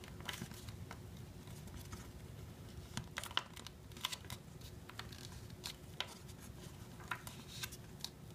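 A sheet of printed paper being folded and creased flat by hand on a table: soft rustling with scattered short crackles and ticks as fingers press and run along the fold.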